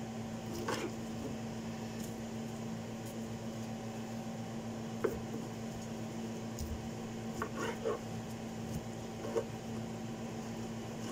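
A knife cutting oranges on a cutting board: a few soft taps and scrapes scattered through, over a steady electrical hum.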